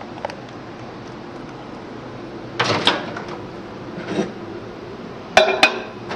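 Microwave oven door unlatched and swung open with a clunk about two and a half seconds in, then a bowl set down on the glass turntable with two sharp knocks near the end.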